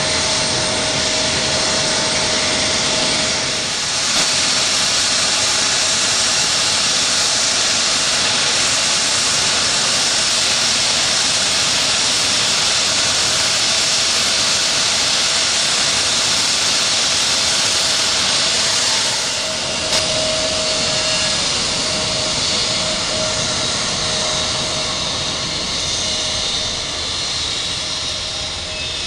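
Turbofan engines of an Embraer E-Jet airliner taxiing at low power: a steady jet hiss and whistle with a faint constant whine. The sound changes abruptly about four and twenty seconds in, and eases slightly near the end.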